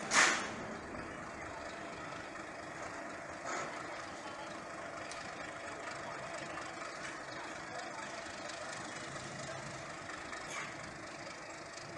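Metre-gauge diesel locomotive running steadily while shunting its train. A sudden short, loud burst of noise comes just after the start, and a fainter one about three and a half seconds in.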